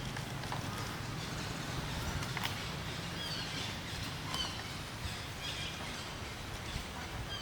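Short high chirps, a few scattered times, over steady outdoor background noise with a low hum.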